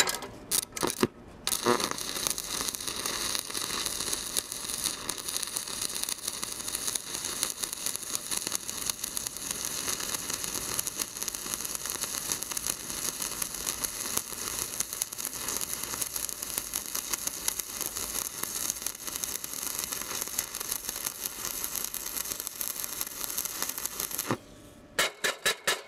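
Stick-welding arc of a 3.2 mm electrode on steel plate, run from a JASIC Novoarc 210M inverter welder in synergic (AI) mode. It stutters in a few short strikes as the arc is struck, then crackles and spatters steadily for over twenty seconds, and cuts off near the end as the rod is lifted.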